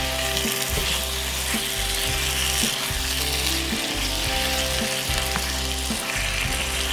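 Potato cubes frying in spiced onion-tomato masala in a non-stick pan, sizzling steadily while a plastic spatula stirs them, with small clicks of the spatula against the pan.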